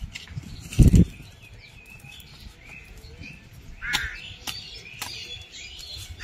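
Birds chirping outdoors with a crow cawing, many short calls overlapping. A brief, loud low thump just under a second in, from wind or handling against the microphone, and a few sharp clicks later on.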